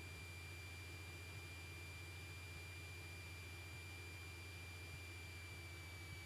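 Faint, steady high-pitched electrical whine over a low hum, the background noise of a cockpit intercom audio feed while the aircraft taxis. The whine drifts slightly lower in pitch.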